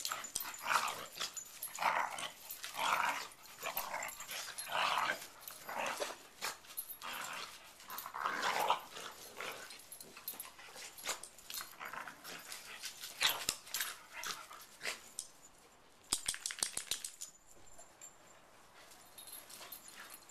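Several dogs growling in short bouts as they play-fight, the growls coming about once a second through the first half, then quieter with a few sharp clicks.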